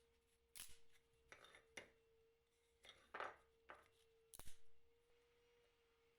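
About half a dozen short scrapes and knocks from hand-tool work on wood, the loudest a sharp knock about four and a half seconds in, over a faint steady tone.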